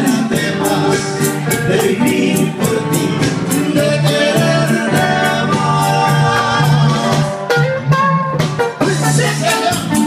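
Live trio of singers with acoustic guitars: several voices hold sung notes together over evenly strummed guitar chords, with a brief break about eight seconds in.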